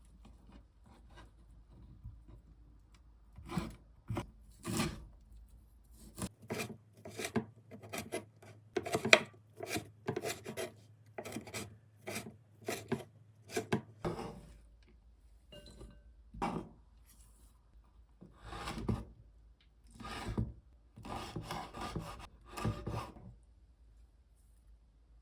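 Repeated rasping, scraping strokes in irregular runs, as of something being rubbed back and forth against a hard surface.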